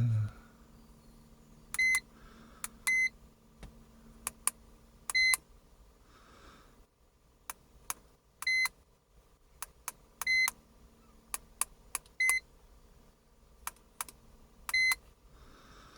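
Handheld iCarsoft LR V2.0 scan tool beeping as its buttons are pressed to scroll through fault codes: about seven short, high-pitched beeps at irregular intervals, with lighter clicks in between.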